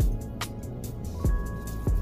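Background music with a steady beat of deep thumps and sharp high ticks over held tones.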